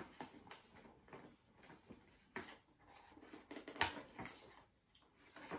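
The packaging of a small boxed toy figure being handled and worked open: irregular crinkles, rustles and clicks of cardboard and plastic, loudest around four seconds in.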